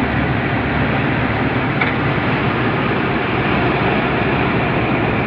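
Tractor-driven Mayur thresher threshing isabgol (psyllium): a loud, steady, even mechanical din of the running machine.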